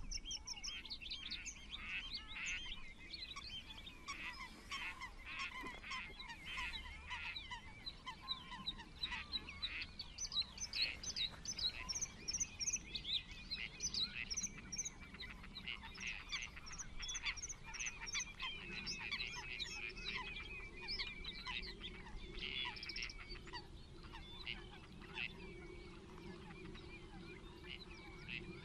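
Wild birds calling: many short, high chirps and twitters throughout, with lower, repeated calls in the first ten seconds or so.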